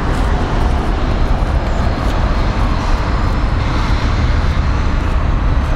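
Tram rolling toward the microphone: a steady rumble of wheels on rail and traction motors, mixed with street traffic. A faint high whine joins about halfway through.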